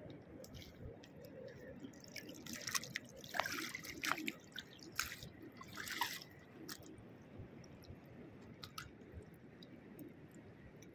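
Faint splashing and dripping of shallow seawater on a rocky tidal flat, with scattered small sharp clicks. The splashes come in a cluster in the middle few seconds.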